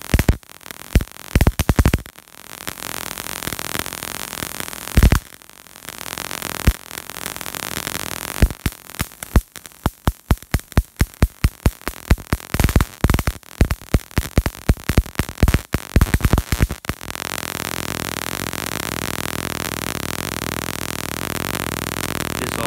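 High-voltage spark discharges from a 50,000-volt dual-polarity supply, snapping irregularly across the spark gaps and gas discharge tube in clusters of sharp cracks over a hiss. About three-quarters of the way through the cracks stop and only a steady electrical buzzing hiss remains.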